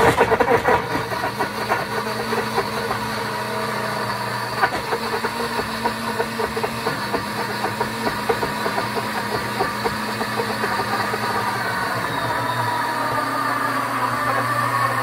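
Pampered Chef Deluxe Cooking Blender running on its Grind setting, its motor going steadily as the blades grind a wedge of hard cheese (Romano/Parmesan) into fine crumbs. Chunks rattle against the jar at first, and the sound evens out as the cheese is ground down.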